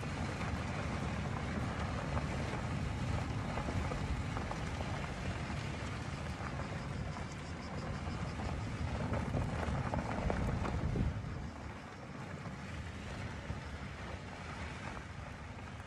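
Steady rushing wind and motor noise from an FPV drone flying fast and low, recorded by the GoPro on board. It drops somewhat about eleven seconds in and stays quieter.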